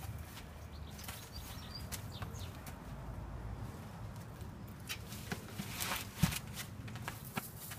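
Rustling and scuffing of someone clambering onto a pot beside a window and pushing against a shrub, with a sharp knock about six seconds in.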